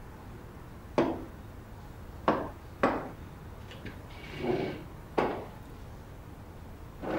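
Dinner plates being set down on a table and diners settling into chairs: four sharp knocks with a softer scrape or rustle in between.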